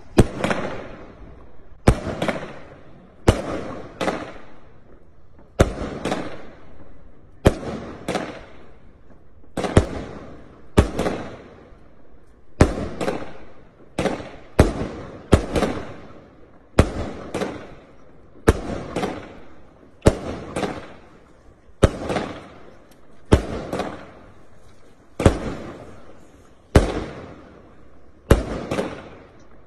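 Gemstone Fireworks Cobalt 25-shot barrage cake firing shot after shot, about one every second, each bang trailing off in a fading rumble.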